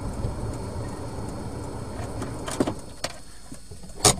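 Low, steady rumble of a car's engine and road noise that drops away about three seconds in, with a sharp click and then a louder short knock near the end.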